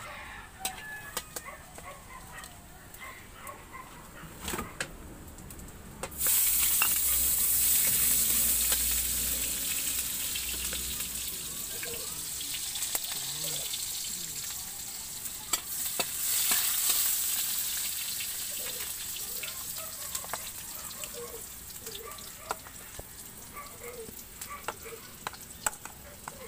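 Hot oil sizzling in a wok, with the metal spatula clicking and scraping against the pan. About six seconds in, the sizzle jumps suddenly loud as onion goes into the hot oil, then slowly dies down, swelling again briefly around sixteen seconds.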